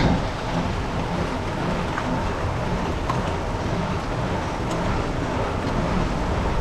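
Steady rush of wind noise on the microphone and tyre noise from a gravel bike ridden at speed, with a few light ticks.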